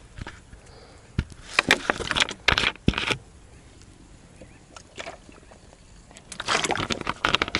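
Handling noises in a small boat: rustling and scraping in two spells, with a few sharp knocks.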